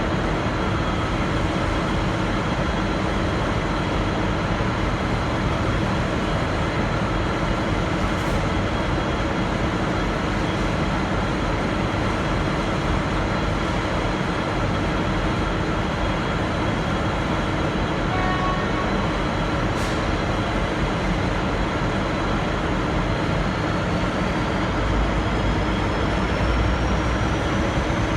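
V/Line N class diesel-electric locomotive and its train pulling out: a steady, dense rumble of engine and rolling stock. Over the last five seconds a high whine rises steadily in pitch while the deep rumble grows louder.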